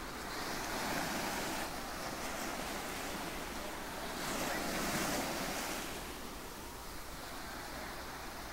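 Ocean surf breaking on a sandy beach: a steady wash of waves that swells about a second in and again around four to six seconds in, then eases off.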